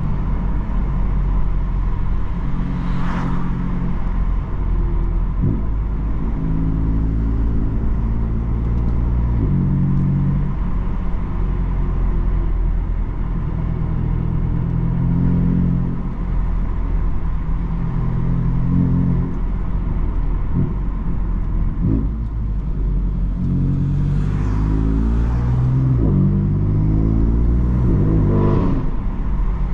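BMW M3 F80's twin-turbo inline-six with an M Performance exhaust, driving: a steady engine note that shifts up and down in pitch as it changes gear and load. Near the end it climbs repeatedly as the car accelerates.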